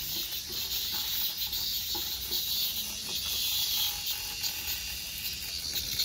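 Cicadas in the park trees buzzing in a steady, hissy chorus, pulsing slightly.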